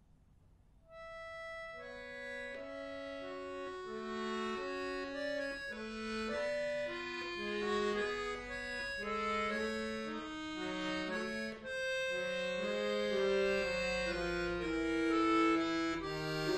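Chromatic button accordion starting a piece after a short silence: a single held note about a second in, then a continuous run of melody notes over changing bass notes.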